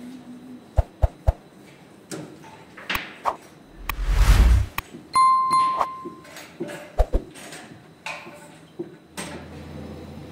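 A subscribe-button sound effect: three quick clicks, a whoosh about four seconds in, then a bell ding that rings for about a second. Scattered knocks come after it, and a low steady hum starts near the end.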